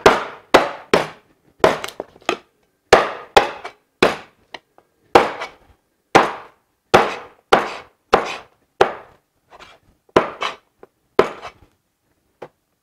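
Heavy Chinese bone-chopper cleaver, 560 g and 3.5 mm thick, chopping through pork spare ribs and bone on a plastic chopping board. It makes a rapid series of sharp chops, about two a second, some in quick pairs. A few lighter strikes come near the end.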